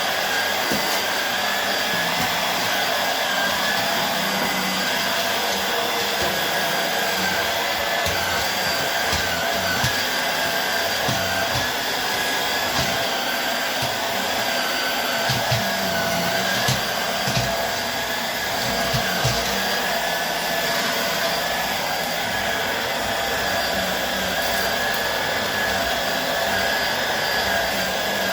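Hoover Air Steerable upright vacuum cleaner running steadily, its motor whine wavering slightly, with a few low knocks in the middle.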